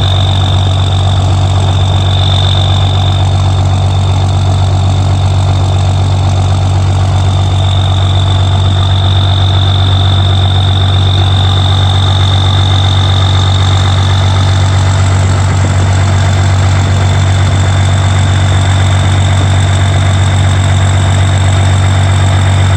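Straight-piped exhaust of an M931A2 5-ton 6x6 truck's Cummins 6CTA8.3 turbo diesel inline-six idling steadily, a deep low drone with a steady high whine above it.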